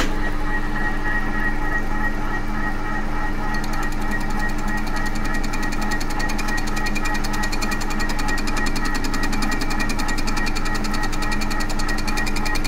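Milling machine running with a steady motor-and-gearbox whine. About three and a half seconds in, the rotating cutter starts skimming the face of a Vauxhall cylinder head, adding a rapid, even, high ticking from the cutter's strikes. This is a resurfacing pass taken a step deeper because the face had not yet cleaned up.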